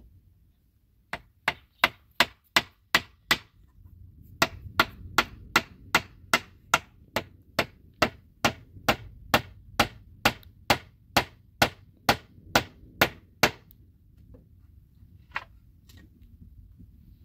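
Hammer driving nails into wooden planks, sharp even blows about two to three a second: a short run of about seven, a brief pause, then a long steady run of about twenty, with one lone knock near the end.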